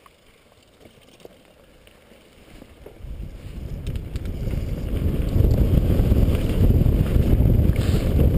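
Mountain bike rolling down a gravel trail: wind buffeting the camera microphone and the tyres rumbling over the dirt. It is fairly quiet at first, then builds from about three seconds in to a loud, steady rumble as the bike picks up speed.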